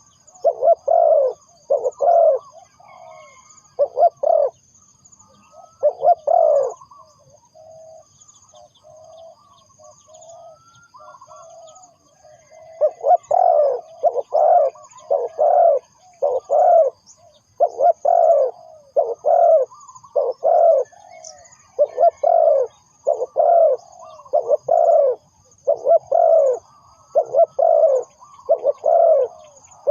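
Spotted dove cooing: runs of short, low coos repeated about once a second. A quieter, broken stretch comes about a quarter of the way in, then the coos resume steadily.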